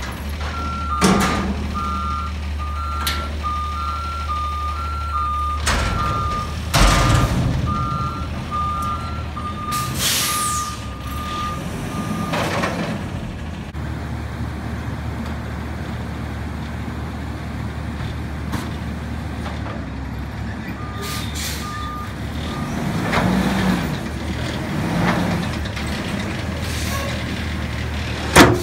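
Front-loader garbage truck's diesel engine running steadily while its backup alarm beeps for about twelve seconds, then again briefly around twenty-one seconds. Metal clanks from the lifting arms and the emptied container come at intervals, with a hiss of air about ten seconds in and a loud sharp bang near the end.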